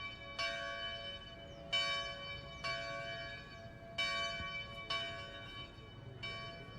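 Church bells ringing: a run of strikes roughly a second apart, each ringing on and fading. Faint bird chirps.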